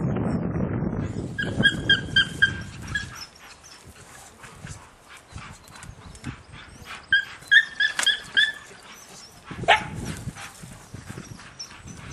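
Spaniel yipping in two quick runs of short, high yelps, about five or six in each run, a few seconds apart. A sharp crack comes later.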